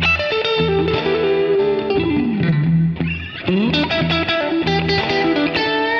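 Background music: electric guitar with effects and distortion over a steady bass line, with sliding bends in the lead about two seconds in and again near the end.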